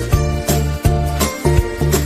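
Upbeat background music with a steady beat, bass line and jingly percussion.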